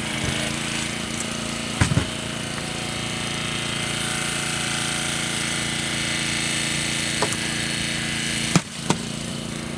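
Small petrol engine of a portable hydraulic power unit for Jaws of Life rescue tools, running steadily under the cutting work. A few sharp cracks stand out over it: one about two seconds in and two close together near the end.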